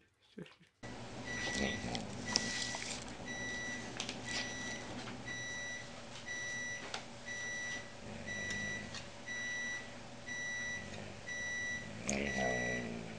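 An electronic beeper sounding steady, even beeps, about two a second, starting about a second in. Near the end there is a short vocal sound, falling in pitch.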